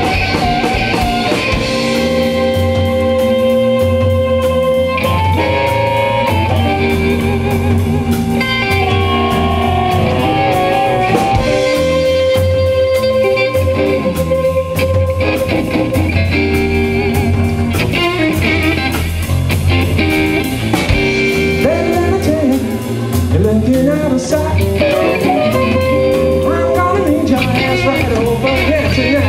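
Live electric blues band playing: harmonica, electric guitar, bass guitar and drums, with long held notes and some bent notes in the later part.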